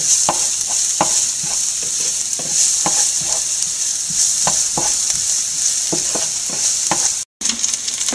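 Chopped shallots, ginger, green chillies and carrot sizzling in oil in a nonstick frying pan while a wooden spatula stirs and scrapes across the pan, a scrape about every half second. The sound drops out for a moment near the end.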